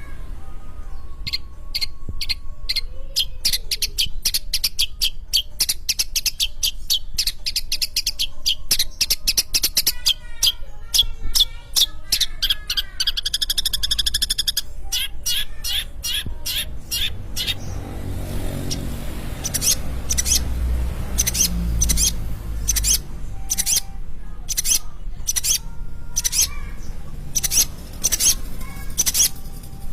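Long-tailed shrike (cendet) singing a long, fast, varied song of rapid repeated sharp notes, with a warbling trill partway through.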